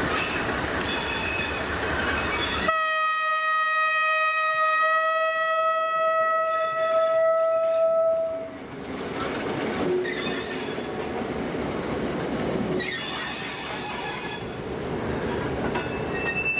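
Vintage CFL diesel locomotive sounding its horn in one long steady blast of about six seconds, starting about three seconds in. It then runs past hauling passenger coaches, with engine noise and wheels clattering over the rail joints, and a brief harsh, high burst of noise about thirteen seconds in.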